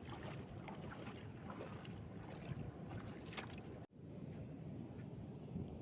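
Wind rumbling on the microphone outdoors by the sea, with scattered small clicks. The sound drops out for an instant about four seconds in, then the wind carries on more softly.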